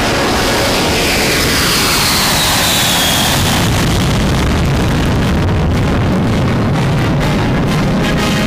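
B-52 bomber's eight jet engines as it flies low past, a loud rushing noise with a high whine that falls in pitch about two seconds in. Music comes back in underneath near the end.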